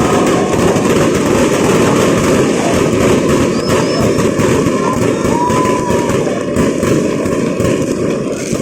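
Many fireworks bursting and crackling in a dense, continuous barrage, with a few short whistling tones over it.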